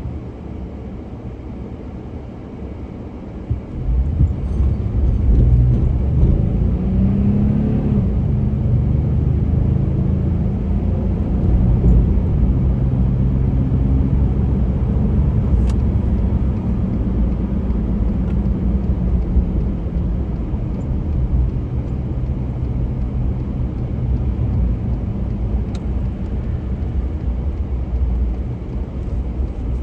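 A car's engine and road rumble heard from inside the cabin while driving, growing louder about four seconds in as the car picks up speed, then running steadily.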